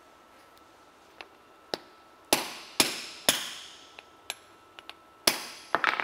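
Hammer blows driving steel wheel studs out of a Honda ATV wheel hub: a couple of light taps, then three heavy metallic strikes about half a second apart, each ringing briefly. Another heavy strike comes near the end, followed by a few quicker, lighter hits.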